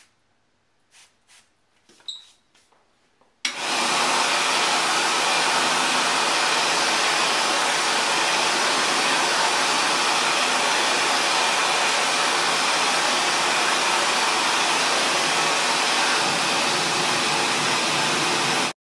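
A few short squirts of a spray bottle, then a World Dryer AirMax high-speed automatic hand dryer starts about three and a half seconds in and blows a loud, steady rush of air over wet hands, stopping abruptly near the end.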